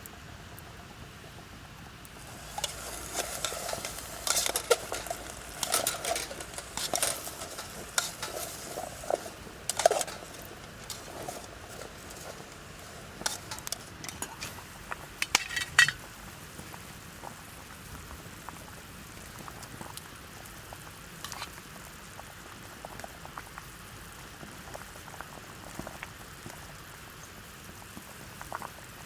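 Camp cooking: a metal utensil clinks and scrapes against a metal pot over a steady hiss of food cooking, in a busy run of knocks that stops about halfway through. After that only the hiss is left, with a few scattered small pops.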